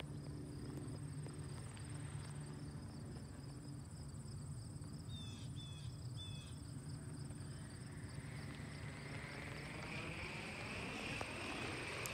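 Insects, crickets among them, chirring steadily in a field, with a few short falling bird chirps about halfway through. Over the last few seconds a rushing sound swells and rises in pitch.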